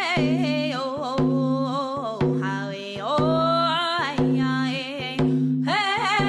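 Background music: a singing voice holding wavering, gliding notes over a low instrument playing steady repeated notes.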